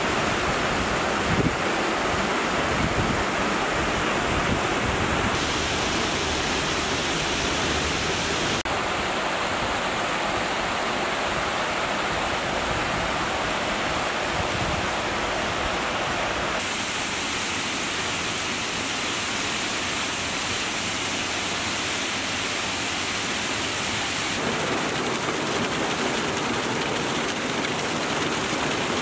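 Multnomah Creek rushing over boulders in white-water cascades and small falls: a steady rush of water whose tone shifts abruptly about four times as the shots change.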